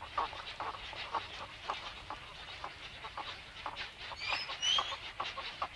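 Snowy egrets calling at the nest: a rapid, busy run of short clucking and chattering calls, several a second, with a few high thin chirps about four seconds in.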